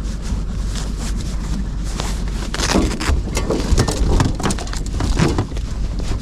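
Steady low rumble of wind and a small boat at sea, with a run of knocks and clatters about midway from handling on deck.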